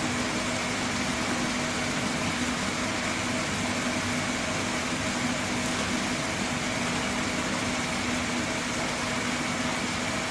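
Steady hum of a running machine under a constant hiss, with a few fixed tones and no change in level.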